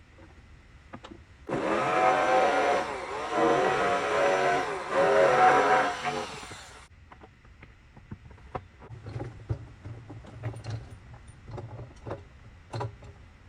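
A power tool's motor runs for about five seconds under varying load, swelling three times, then stops abruptly. Scattered light knocks and taps follow.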